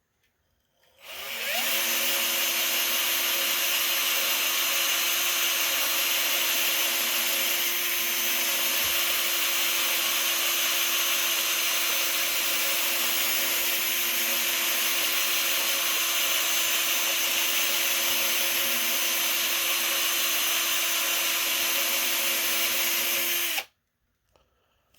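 Power drill spinning a brass cleaning brush inside an old rifle's receiver and chamber, scrubbing out decades of built-up gunk. It spins up about a second in with a brief rise in pitch, runs at one steady slow speed, and stops abruptly near the end.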